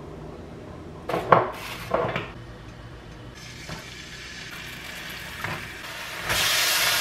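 Food frying in oil in a non-stick frying pan, with a few knocks of pan and utensils in the first two seconds. A soft sizzle builds from about halfway and turns loud near the end.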